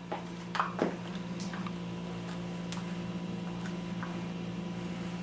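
A screwdriver clicking and scraping on the butt plate screws of a Remington 870 shotgun, a few short scrapes in the first second and faint ticks after, over a steady low hum.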